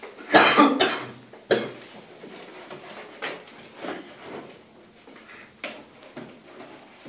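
A man coughing: a loud fit of coughs in the first second and another cough just after, then fainter scattered sounds.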